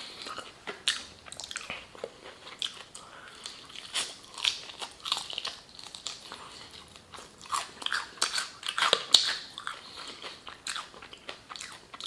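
Close-up crunching and chewing of crispy fried chicken: irregular crisp bites of the breading followed by wet chewing.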